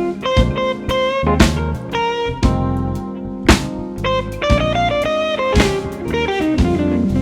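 Live rock band playing an instrumental break: an electric guitar solo over drum kit and bass, with a melodic line of single notes and regular drum hits.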